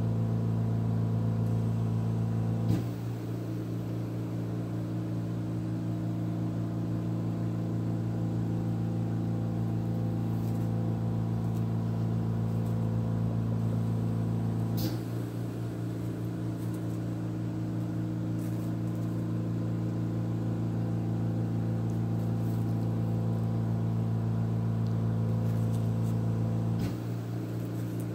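Oxygen concentrator humming steadily. About every twelve seconds a click comes and the hum shifts in tone and drops slightly, consistent with the machine's regular switching cycle.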